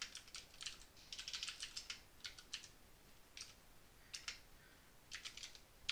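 Computer keyboard typing: faint keystrokes in short quick runs with pauses between them.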